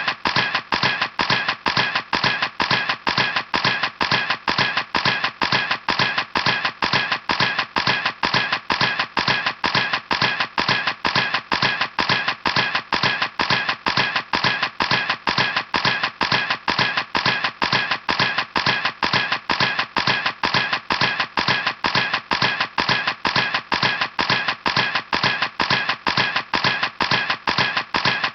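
Camera shutter clicking over and over in a steady, even rhythm of about three clicks a second, like a continuous burst.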